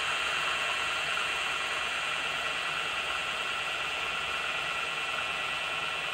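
Deber FU2 milling machine's horizontal spindle running steadily at its top speed of 1570 rpm. It makes an even whirring hum with a steady high whine over it and no knocking or grinding, the sign of a spindle drive in good running order.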